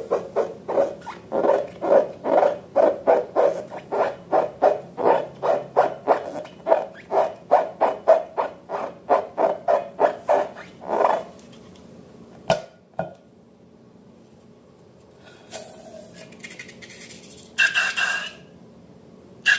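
Slime being squeezed and worked by hand: quick, even squelches about three a second. They stop about halfway through, followed by a sharp click.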